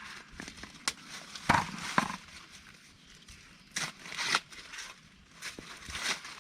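Dry corn plants rustling and crackling as ears are broken off and husked by hand, with irregular louder snaps about one and a half to two seconds in and again around four seconds.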